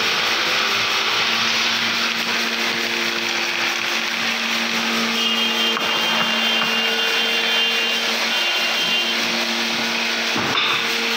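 A workshop machine's electric motor running steadily: a constant hum under an even whirring noise, with no change in speed.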